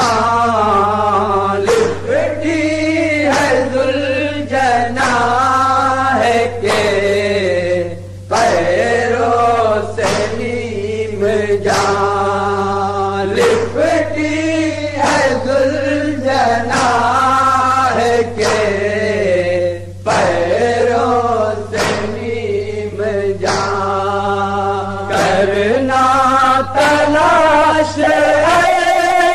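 Male voices chanting a nauha, an Urdu lament, in long sung lines that rise and fall, with sharp beats at intervals and a steady low hum underneath.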